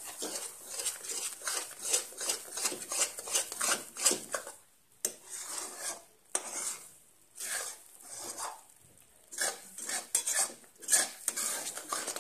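Metal spatula scraping and clinking against a metal kadai as thick banana halwa is stirred. It goes in quick repeated strokes, with a few short pauses.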